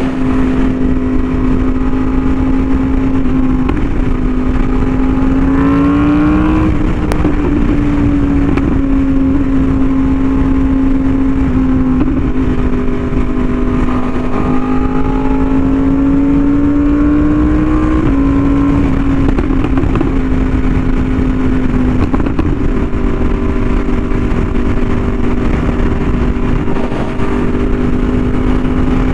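Yamaha YZF-R1M's crossplane inline-four with an SC Project exhaust running at a steady cruise, with wind rushing across the microphone. Twice the engine note climbs and then drops back down, once about six seconds in and again near eighteen seconds.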